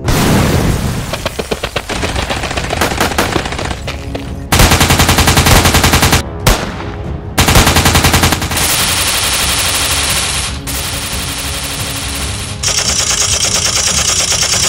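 Dubbed war-film sound effects of automatic gunfire: long runs of rapid machine-gun shots, with two louder bursts about four and a half and seven and a half seconds in. It opens with a loud bang that dies away over about a second.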